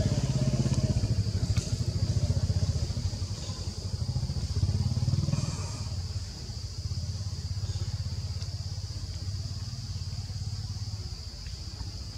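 A small engine running with a low, rapidly pulsing rumble, loudest in the first half and easing off after about five seconds, over a steady high-pitched insect drone.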